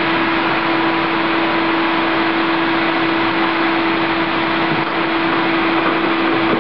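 Wet/dry shop vacuum running steadily: a loud, even rush of air with a steady hum held underneath it.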